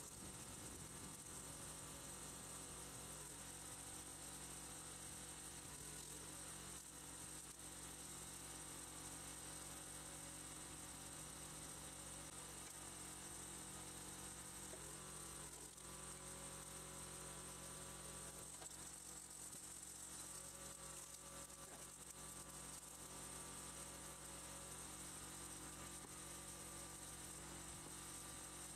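A faint, steady hum and buzz with a high hiss, unchanging throughout, with no distinct impacts or changes in pitch.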